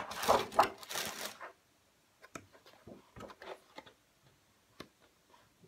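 Stiff sheets of scrapbook paper being flipped over in a pad: a loud papery swish over the first second and a half, then soft rustles and light taps as the pages settle and are handled.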